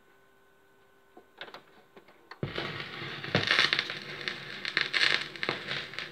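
A few faint clicks, then from about two and a half seconds in a loud, uneven crackle with pops: a turntable stylus riding the grooves of a worn 7-inch vinyl single, heard as surface noise.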